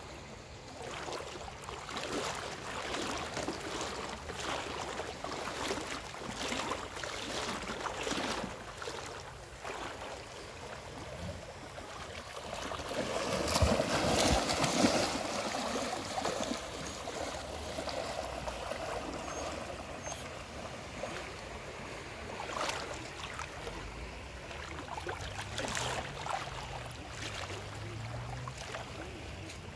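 Shallow sea water splashing and lapping as dogs swim and paddle. It grows loudest about halfway through, where a golden retriever splashes through the shallows.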